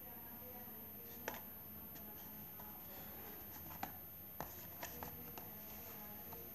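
Cardboard medicine box handled, laid down on a cloth and turned over: about half a dozen light taps and clicks, most of them in the second half, over a faint steady hum.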